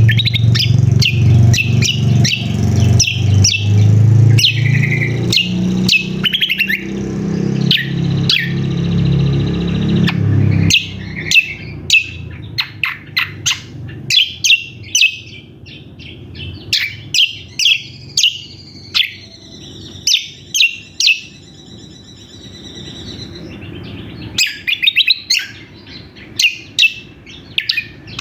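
Cucak kombo (kecial kombok) in a noisy, busy run of sharp high chirps and short buzzy trills, the excited calling used to lure males. A loud low hum underlies the first ten seconds or so, then stops suddenly, leaving the chirps spaced out over a quieter background.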